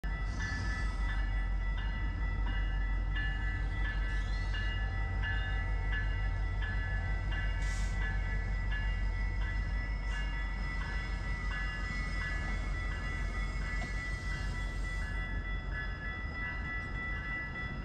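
Metra commuter train running by with a heavy low rumble. Over it, a bell rings steadily about twice a second.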